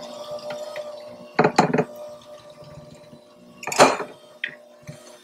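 Electric hand mixer running on low speed with a steady motor hum as its metal beaters churn powdered sugar in a glass bowl. The beaters clatter against the bowl twice, about a second and a half in and again just before four seconds in.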